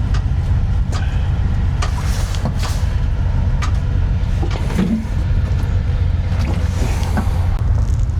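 Steady low vehicle engine rumble with scattered knocks and rattles over it.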